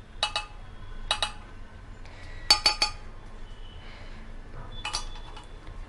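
Metal kitchen utensils clinking against a small pan and cup while a cooled syrup is strained. There are single sharp, ringing clinks near the start, a quick run of four in the middle and another near the end.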